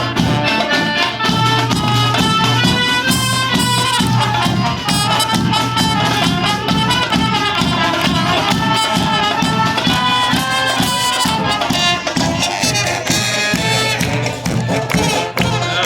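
Klezmer band playing live: a brass-led melody over a held bass note and a steady beat.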